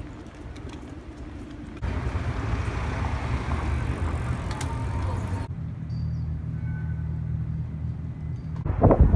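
Outdoor street noise with the low rumble of traffic, changing suddenly twice: a quiet hum, then louder rumbling noise, then a steady low hum. Near the end, wind buffets the microphone loudly.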